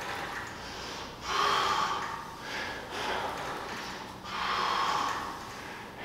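A man breathing hard with exertion during cable face pulls, two strong exhales, about a second in and about four seconds in, with lighter breaths between, in time with his reps.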